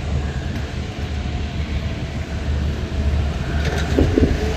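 Steady low rumble of a car driving, with engine and road noise, and a brief squeak about four seconds in.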